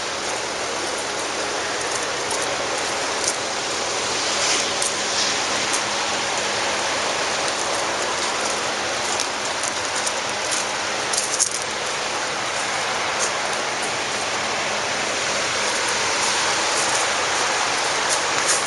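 Steady, even hiss of outdoor noise with scattered faint clicks, the kind made by rain on a surface.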